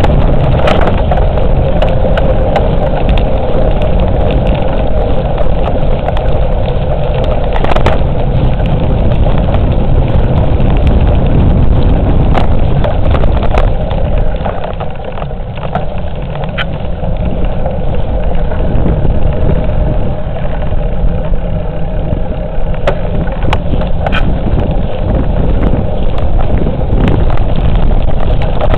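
Wind buffeting the microphone of a camera on a moving bicycle, with scattered rattles and knocks from the ride over the path. It eases for a few seconds about halfway through.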